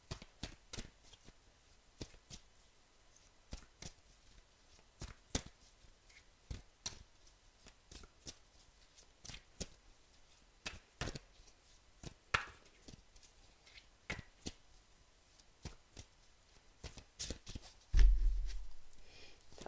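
A deck of tarot cards being shuffled by hand: an irregular patter of soft card clicks and slaps. Near the end there is a single dull thump.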